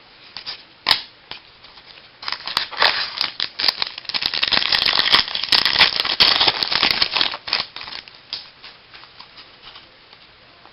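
Baseball cards and their pack wrapper being handled: dense crinkling and rustling made of many quick clicks starts about two seconds in and lasts about five seconds. Scattered light clicks come before and after it.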